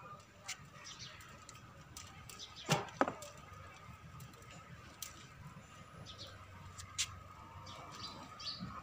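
Small birds chirping in the background over a faint steady tone, with two sharp knocks close together about three seconds in and a few lighter clicks later.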